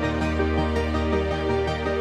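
Background music: a calm, sustained instrumental piece with a held bass note and slowly changing chords.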